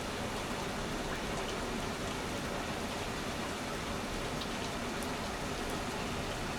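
Minnehaha Falls pouring: a steady, even rush of falling water.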